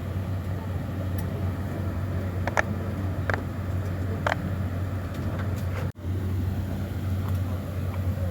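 Steady low drone of an airliner cabin in flight, with a few separate soft pops of a silicone pop-it fidget toy's bubbles being pressed, about three in the middle. The sound drops out for a split second near three quarters of the way through.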